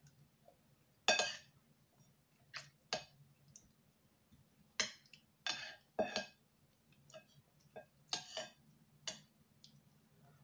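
Close-miked eating sounds: about ten short, irregular clicks and clinks of utensils and dishes, some with a brief wet smear, over a faint steady low hum.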